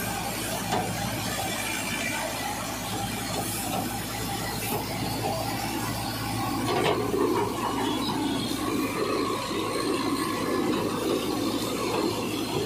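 Punni grain cruiser, a tractor-mounted thresher driven by a Mahindra Novo 755 diesel tractor, running steadily: a constant engine hum under the noisy rush of the threshing drum. The sound grows fuller about seven seconds in.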